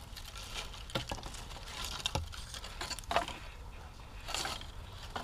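A few soft knocks, about a second apart, then a brief rustle near the end, close to the microphone over a quiet outdoor background.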